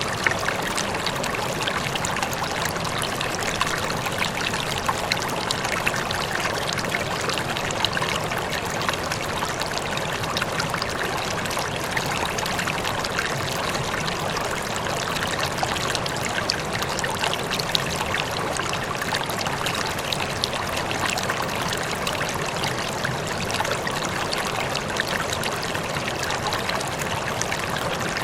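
Running water flowing steadily, an even rush with fine splashing and trickling all through.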